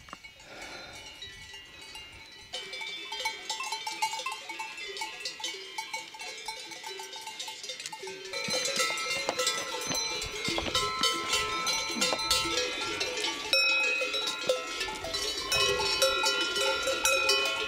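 Cowbells on grazing alpine cattle clanking irregularly, several bells of different pitch ringing over one another. Fainter at first, they grow louder and busier about eight seconds in.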